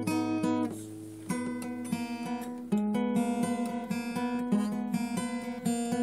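Music from a strummed acoustic guitar playing chords, the chords changing every second or so, with a brief softer passage about a second in.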